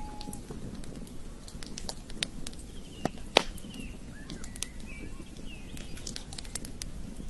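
Campfire crackling: irregular sharp pops and snaps, the loudest about three and a half seconds in, over a low steady rush. Faint bird chirps come in around the middle.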